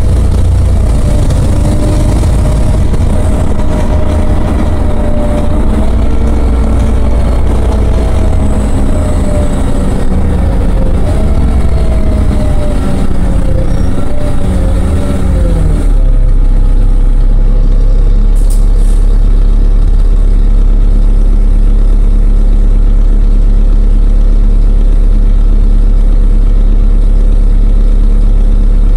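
LiAZ-5292.60 city bus heard from inside the passenger cabin: the diesel engine and drivetrain whine with a wavering pitch that falls as the bus slows. About halfway through the sound changes suddenly to the engine idling steadily with the bus at a standstill, with one brief hiss a couple of seconds later.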